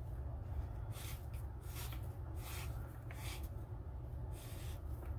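Leather tefillin straps brushing and sliding against each other as they are pulled through a knot by hand, heard as several short soft rustles over a steady low hum.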